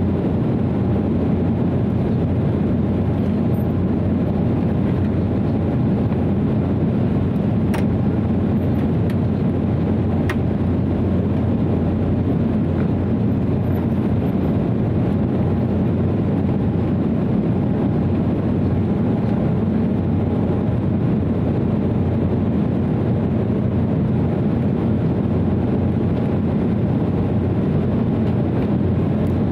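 Steady cabin drone of an Embraer 190 in flight: rushing air and the hum of its General Electric CF34-10E turbofans, heard from a cabin seat, with a faint steady whine on top. Two faint clicks come about eight and ten seconds in.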